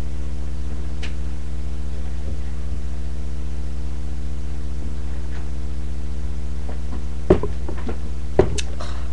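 A steady low hum with no speech, broken near the end by two sharp knocks about a second apart.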